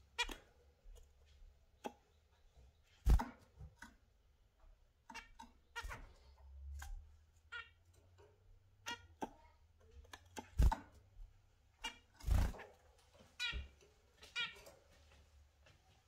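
Caged budgerigars and zebra finches calling: many short chirps and nasal calls scattered throughout. A few sharp knocks stand out as the loudest sounds, about three seconds in and again around ten and twelve seconds.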